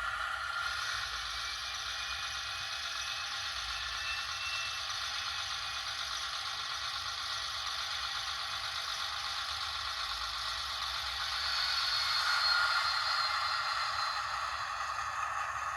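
Viessmann digital-sound powered model freight car running on its track: a steady, small-scale mechanical rattling whir, a little louder about twelve seconds in.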